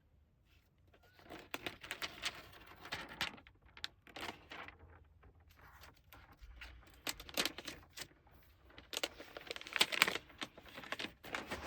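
Packaging being handled: irregular crinkling and rustling with small clicks and tearing, as wrapping is pulled off and the box contents are moved about.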